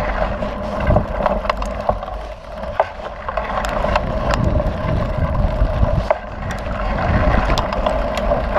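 Wind rushing over the bike-mounted microphone, with the mountain bike's knobby tyres rolling over hard-packed dirt. Frequent sharp clicks and rattles come from the bike and gravel over the bumps.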